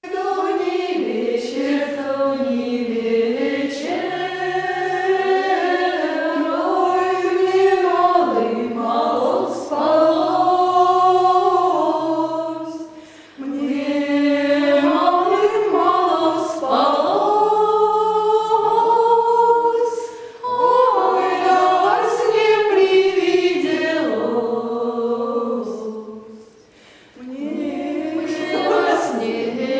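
A choir singing slow, unaccompanied music, several voices holding long chords, with three short breaks between phrases.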